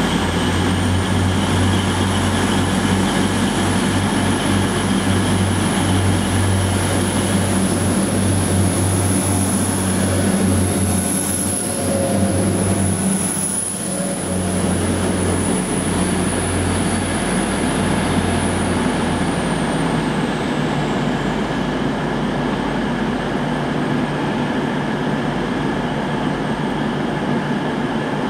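Class 175 diesel multiple unit running past along the platform: a low, steady diesel engine drone with a thin high whine over it. Both fade after about twenty seconds as the train draws away.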